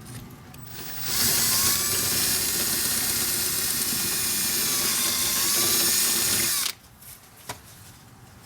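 Power drill drilling a screw hole: it starts about a second in, runs steadily at speed with a brief sag in pitch about five seconds in, and stops abruptly.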